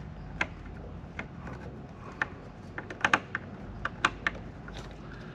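Small screwdriver clicking against the screws and plastic housing of an HVAC contactor while its cover screws are being backed out. Scattered light, sharp clicks come at uneven intervals, with a few bunched together about three and four seconds in.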